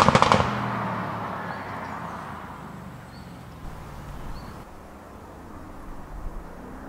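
Audi RS6's twin-turbo V8 passing close by with a quick run of exhaust crackles, then its engine note dropping in pitch and fading as it drives away. Near the end it is heard again approaching, its engine note rising as it speeds up.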